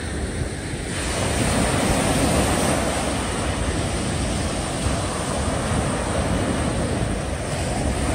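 Small sea waves breaking and washing up a sandy beach, with wind rumbling on the microphone. The hiss of the wash swells about a second in as a wave runs up the sand.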